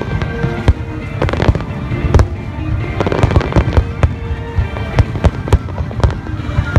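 Aerial fireworks display, with shells bursting in rapid, overlapping succession: a dense run of sharp bangs and pops over a continuous low rumble.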